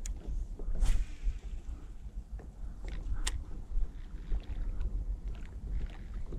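Wind rumbling on the microphone over open water from a stand-up paddleboard, with water lapping. A few short sharp knocks and swishes come through, the strongest about a second in and another about three seconds in.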